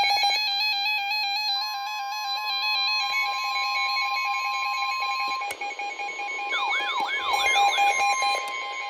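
Electronic weather-alert tones. A pulsing beep runs throughout, a single steady alarm tone comes in from about 1.5 to 5.5 seconds in, like the NOAA Weather Radio warning alarm tone, and a few quick warbling pitch sweeps follow about two-thirds of the way through.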